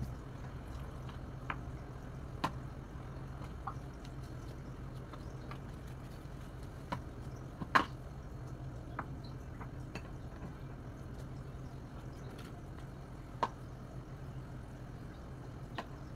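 Scattered light clicks and taps of a metal spoon against a plastic food container and of hands handling thin wrapper sheets on a bamboo cutting board, the sharpest click about eight seconds in, over a steady low hum.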